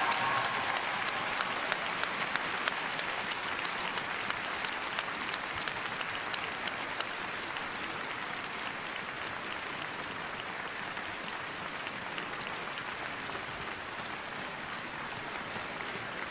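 Large arena crowd applauding, dense clapping that slowly thins out and gets quieter. The last held note of the music dies away at the very start.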